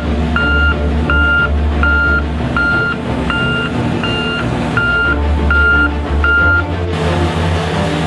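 Reversing alarm of an XCMG tandem road roller beeping steadily, one high beep about every three-quarters of a second, over the low running of the roller's diesel engine. The beeps stop about a second before the end.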